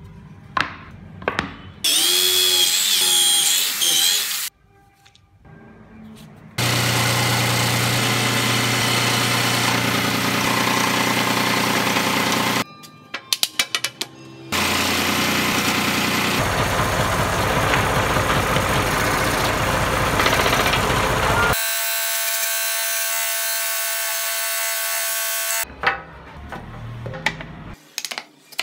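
Power tools cutting wood in several long stretches that start and stop abruptly, one of them with a steady whine, with clusters of sharp clicks and knocks between them. Near the end, a hand chisel knocks and scrapes as it pares wood out of a recess.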